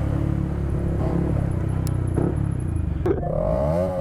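Yamaha MT-125's single-cylinder engine running through a non-homologated Arrow racing exhaust line, idling with a steady, deep note. Near the end it gives a quick rev that rises and falls back.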